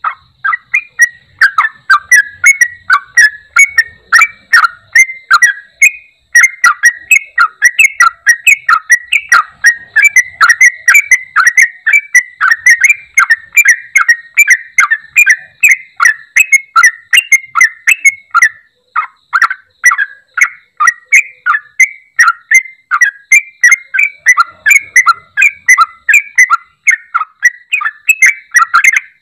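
Yellow-vented bulbul (trucuk) singing a loud, fast, unbroken run of short chattering notes, with brief pauses about six and nineteen seconds in. This is the bird's fired-up 'ampoh' calling, used to coax silent bulbuls back into song.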